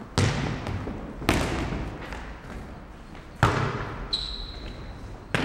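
Futnet ball bouncing on the wooden hall floor and being kicked: four sharp hits, each echoing in the large hall. A steady high whistle tone sounds for about a second near the end.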